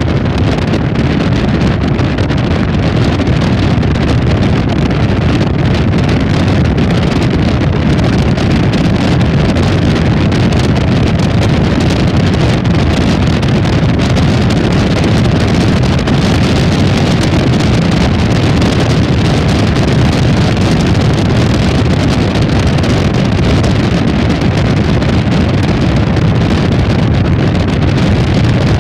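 Steady road and wind noise of a moving car, heard from inside, with wind buffeting the microphone.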